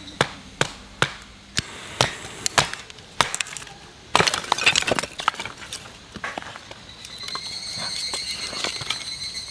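Batoning kindling: a wooden baton knocking sharply on a knife's spine to split thin sticks of wood, about eight knocks in the first three seconds, followed about four seconds in by a short rough burst of wood splitting and cracking. A steady high-pitched drone comes in about seven seconds in.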